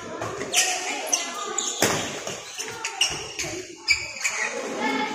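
Badminton rally: rackets smacking a shuttlecock back and forth, a string of sharp hits with the loudest about two seconds in, along with shoes moving on the court and background voices.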